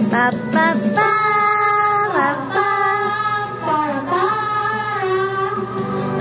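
A boy singing into a handheld microphone, holding long notes and sliding from one pitch to the next.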